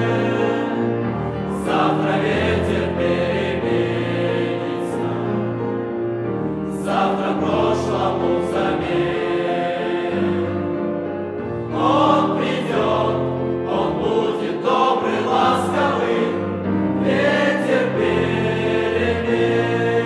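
Mixed choir of male and female voices singing in harmony, with long held chords that swell and ease.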